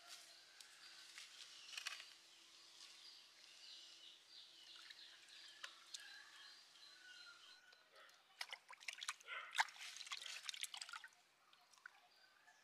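Water splashing and sloshing in a pot as a squid is washed in it by hand, a run of splashes starting about two-thirds of the way in and stopping about a second before the end. Before that, only faint bird chirps.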